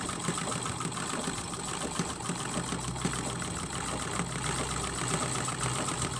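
Sewing machine running steadily, stitching through a quilt as it is machine-quilted.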